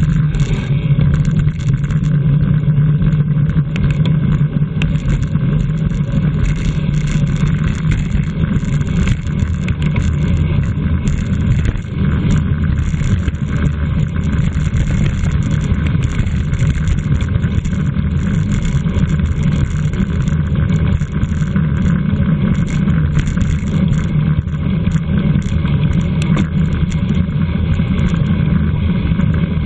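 Steady, loud rush of wind over a racing bicycle's onboard camera microphone at race speed, with a low rumble and no break.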